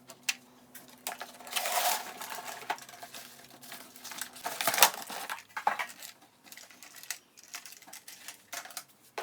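Unboxing handling sounds: packaging rustling and crinkling, with sharp clicks and knocks of hard parts being handled. The loudest knock comes a little under five seconds in.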